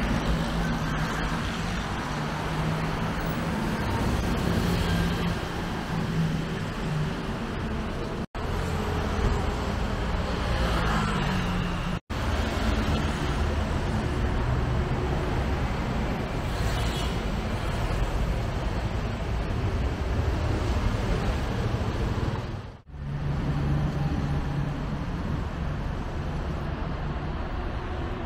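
Busy city road traffic: cars, buses and motorbikes running by with engine hum and tyre noise, steady throughout, with a couple of sudden brief gaps.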